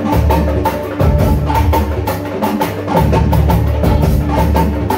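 Live mbalax band music: electric guitar and heavy bass under busy, evenly spaced percussion strikes, loud and continuous.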